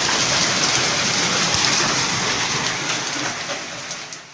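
Heavy rain mixed with hail, a dense steady hiss with scattered sharp ticks of stones striking. It grows quieter over the last second and a half.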